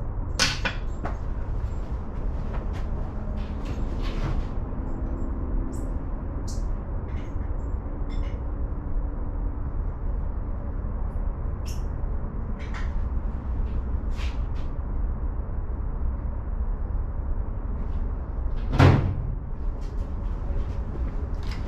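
Scattered small clicks and taps of an air fitting being handled and threaded into an air tool, with one louder knock near the end, over a steady background hum.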